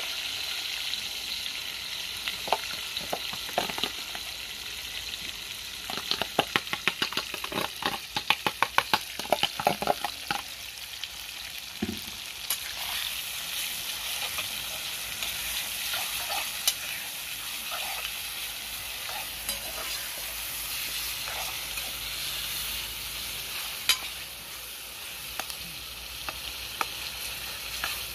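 Chopped onion, tomato and peppers sizzling in hot cooking oil in a metal pot, with a metal spoon scraping and knocking against the pot as they are stirred, most busily from about six to ten seconds in.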